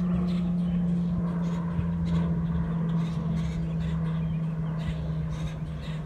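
An engine running steadily with a low hum that sinks slightly in pitch, with birds making short calls over it.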